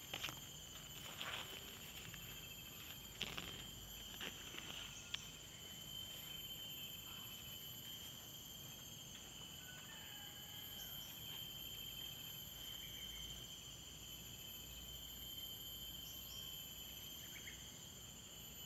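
Steady outdoor insect chorus, a continuous high trilling at a few fixed pitches. A few short crackles of rustling dry grass come in the first five seconds.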